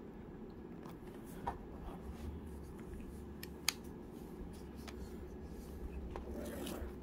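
Faint rustling and light clicks of a shrink-wrapped cardboard trading-card box being handled and set down on a table, with one sharp click about halfway through.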